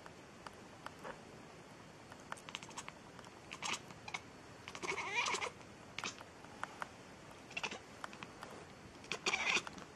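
A cat meowing several times in short calls, the longest about five seconds in and another near the end.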